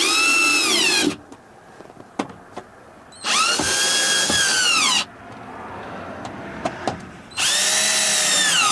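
Cordless drill/driver driving the mounting screws of a 6x9 speaker into a car door, in three short runs. Each run is a whine that rises in pitch as the motor spins up and drops as the screw tightens down.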